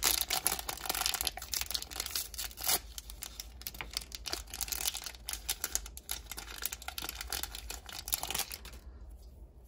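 Plastic wrapping crinkling and tearing as a small surprise packet is torn open by hand, a dense run of crackles that stops near the end.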